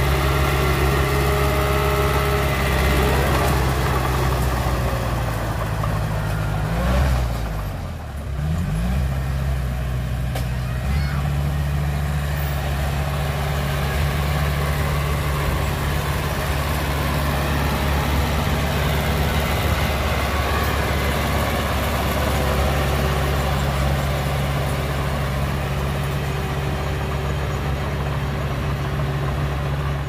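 Heavy diesel engine of a dump truck or bulldozer running with a deep, steady note. About seven seconds in, its speed briefly drops and rises again before settling back to a steady run.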